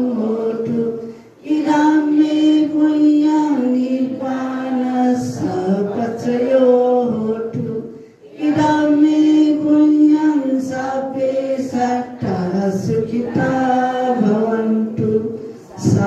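A congregation singing a Buddhist devotional chant in unison, in long held phrases on a steady melody, pausing briefly for breath about a second in, about eight seconds in and near the end.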